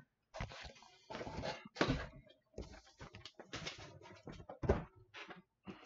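Cardboard box being handled: irregular rustles, scrapes and light knocks of cardboard.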